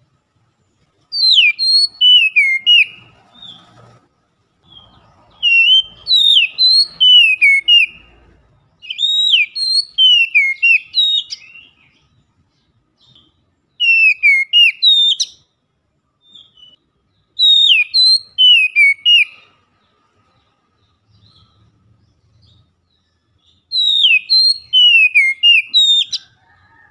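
Oriental magpie-robin (kacer) singing loudly: six short phrases of fast, clear whistles sliding up and down, separated by pauses of one to several seconds.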